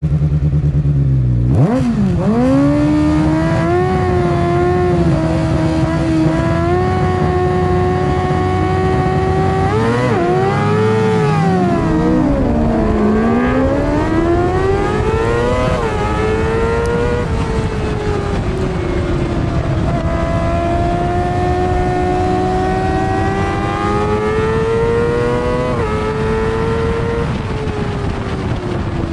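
Onboard sound of a racing sidecar's engine at racing speed: after a low rumble for the first second or so, it revs hard and climbs through the gears, the pitch rising and then dropping at each shift, with quick blips and falls in the middle as it brakes and changes down for corners. Wind rushing past the microphone runs under it.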